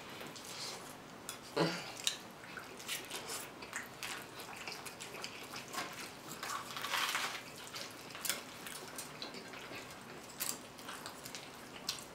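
Eating sounds: wet chewing and slurping of saucy spaghetti, with scattered clicks of plastic forks against the plates.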